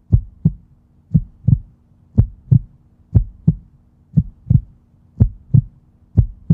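Heartbeat sound effect: paired lub-dub thumps repeating about once a second, over a faint steady hum.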